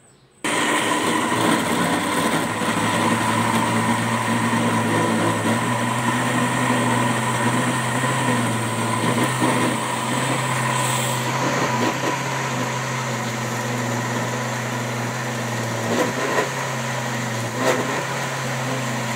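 Cambridge electric grinder starting up about half a second in and running steadily at full speed, its glass jar whirling tomatoes, green chilli and garlic with water into a smooth wet paste.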